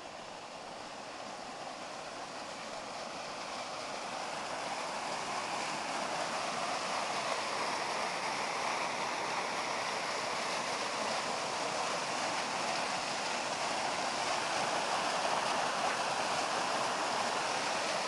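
Small waterfall cascading down a rocky gully: a steady rush of falling water that grows louder over the first several seconds, then holds steady.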